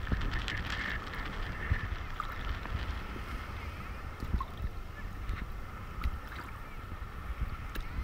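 Sea water lapping and sloshing right around a camera held at the water's surface, with a gusty low buffeting rumble on the microphone and small splashy clicks.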